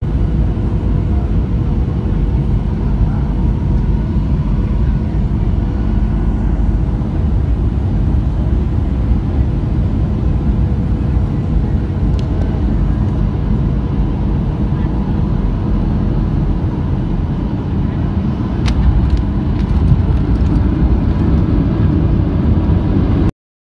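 Jet airliner cabin noise on final approach: steady low rumble of the engines and airflow with a faint steady whine. Near the end a few sharp knocks come as the wheels touch down, and the rumble grows louder on the landing roll.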